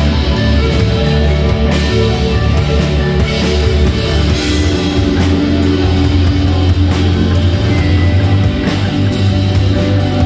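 Rock band playing live and loud: electric bass, electric guitars and keyboard over drums, with a strong steady bass line.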